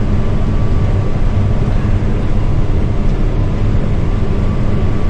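Combine harvester running steadily while harvesting barley, heard from inside the cab as a constant low drone of engine and machinery with a faint steady whine.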